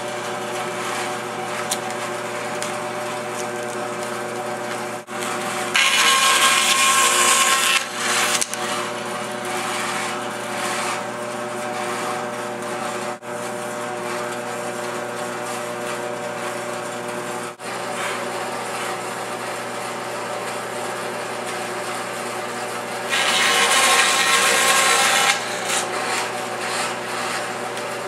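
Band saw running steadily while its blade slices through a glued-up wood block for thin inlay slices. It cuts twice, each cut about two seconds long and louder than the running, once about six seconds in and again near the end.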